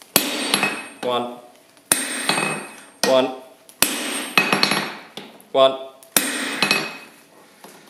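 Heavy hammer blows on a glowing steel bar held with tongs on the anvil: a sharp metallic strike about every second and a half, each ringing briefly and dying away, as the bar is forged down to square.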